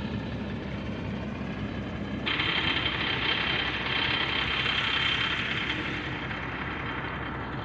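Truck engine idling with a steady low rumble. A steady hiss joins suddenly about two seconds in.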